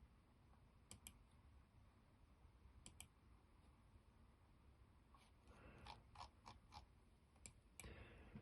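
Near silence with faint clicking at a computer: a pair of clicks about a second in, another pair near three seconds, then a quicker run of clicks over the last few seconds.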